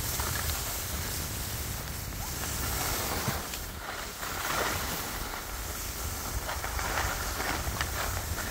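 Wind buffeting the microphone with a steady low rumble, with the hiss and scrape of skis sliding over packed snow while skiing downhill.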